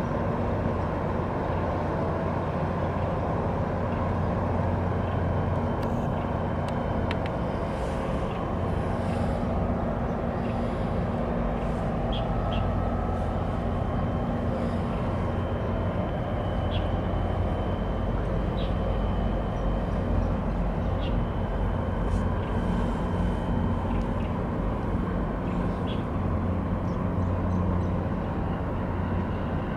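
Steady low engine drone of ships moving close by on the water, with a faint high steady whine through the middle and a few light clicks.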